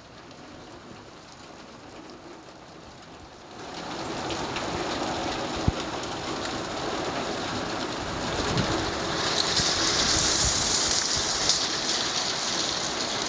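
Heavy rain pouring down and hitting surfaces as a steady hiss. It gets louder about three and a half seconds in and brighter again near the end, with a few sharp ticks.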